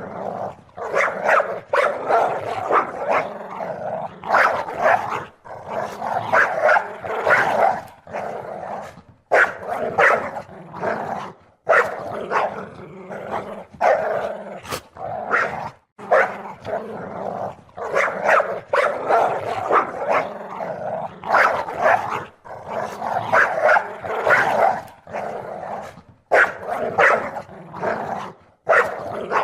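Dog barking and growling in rapid, continuous runs, broken by short pauses every few seconds.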